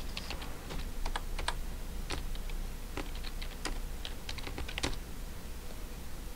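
Typing on a computer keyboard: irregular key clicks that stop about five seconds in.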